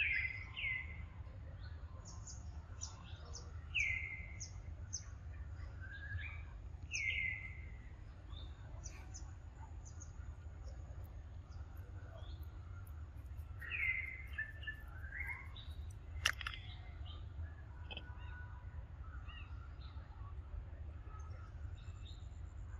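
Wild birds calling: a short, falling call repeated every few seconds, with scattered high chirps, over a steady low rumble. A single sharp click about sixteen seconds in.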